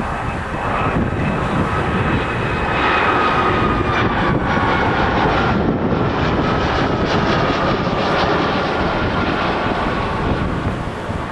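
Jet airliner passing close on its landing approach, its engines whining and the whine slowly falling in pitch as it goes by, with heavy wind noise on the microphone.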